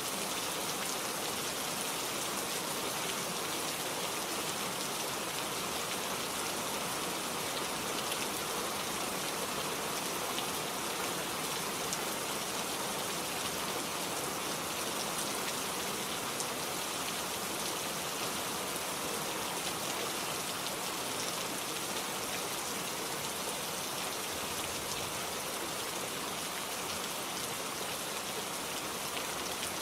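Steady rain falling on forest foliage, a dense, even patter of drops.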